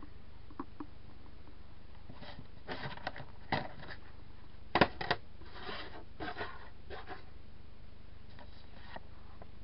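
Handling noises: a printed sheet of paper rustling and being moved about, with scattered clicks and a couple of sharp knocks about halfway through.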